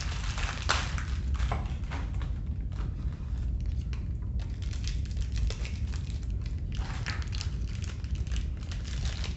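Scattered light clicks and rustles of small plastic parts of a laser level being handled, over a steady low hum.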